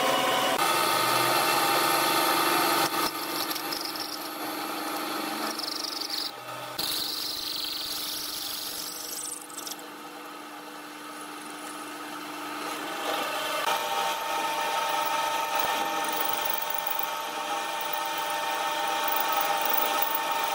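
Bench drill press motor running steadily while a twist drill bit bores into steel angle iron. The level dips in the middle and rises again later.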